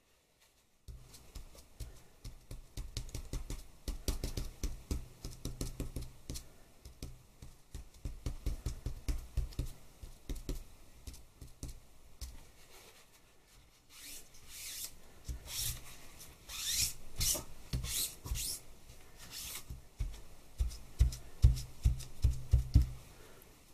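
A folded cotton cloth and hand rubbing quickly back and forth over paper on a plastic sheet, burnishing an oil-paint monoprint. The scrubbing strokes come in runs, with a few brighter, hissier strokes in the second half.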